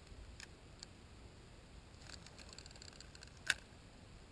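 Light clicks from a fishing rod and reel being handled, then a quick run of ticks and one sharp click about three and a half seconds in, over a faint hiss.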